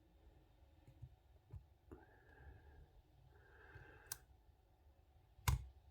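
Lock pick and tension wrench working the pins of a Viro chain link padlock held in a vise: faint scattered metal clicks and ticks, a couple of soft breaths, and one louder sharp click about five and a half seconds in.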